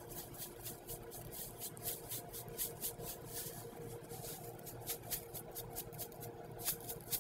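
Sesame seeds rattling in a plastic shaker bottle as they are shaken out over bagel dough on a sheet pan: a faint, quick rhythmic rattle, several shakes a second, pausing briefly a few times.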